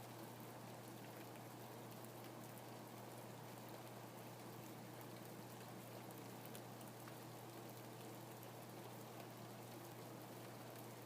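Steady rainfall: an even hiss of rain with scattered fine drop ticks, and a low steady hum underneath.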